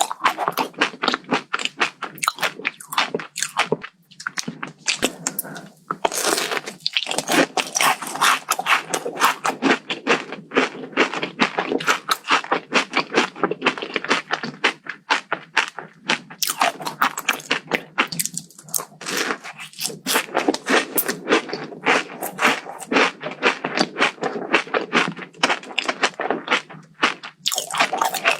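Close-up crunching and chewing of a crisp dessert, Dubai-style chocolate filled with toasted kadaif pastry, in dense runs of crackly bites with a few brief pauses.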